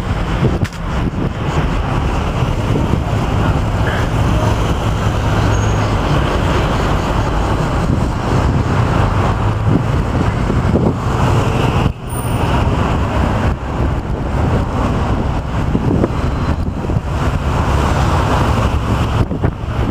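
Steady low engine rumble and road noise of an open-top double-decker tour bus, heard from its upper deck, mixed with passing city traffic.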